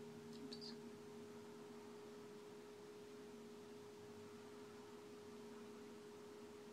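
Near silence: room tone with a faint steady hum, and a few faint clicks in the first second.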